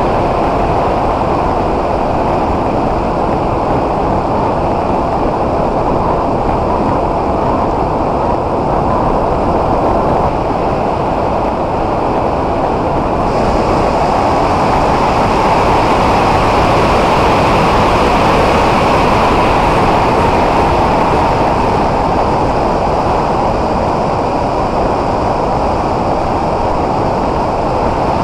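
The S800 FPV aircraft's electric motor and propeller running steadily in flight, heard from its onboard camera under a continuous rush of wind. A thin higher whine joins about halfway through.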